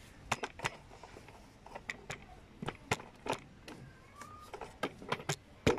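Irregular light clicks and knocks of a rebuilt alternator being handled and worked into its mounting in the engine bay, with one sharper knock near the end.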